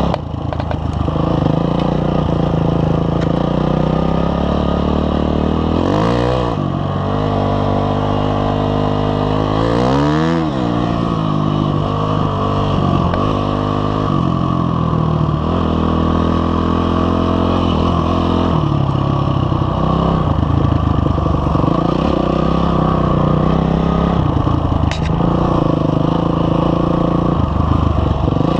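Honda CRF250X dirt bike's single-cylinder four-stroke engine running under load along a trail, revving up and down with the throttle. The engine pitch swings sharply twice, about four seconds apart.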